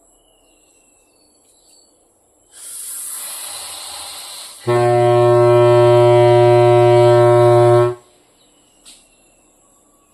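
Homemade balloon air horn blowing: a rushing hiss of air for about two seconds, then a loud, steady, low honk for about three seconds that cuts off suddenly. A short click follows near the end.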